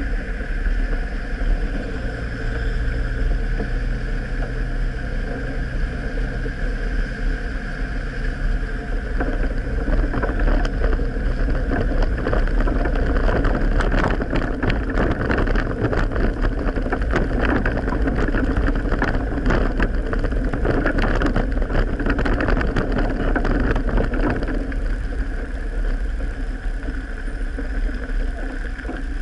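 Vehicle engine running steadily while driving along a rough dirt track, with a low rumble. From about ten seconds in until a few seconds before the end, rapid rattling and knocks come from the bumpy surface.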